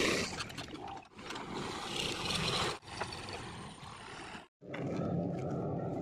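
Diesel tractor and backhoe machinery running, heard in short clips that change abruptly several times, with a brief silent break about four and a half seconds in.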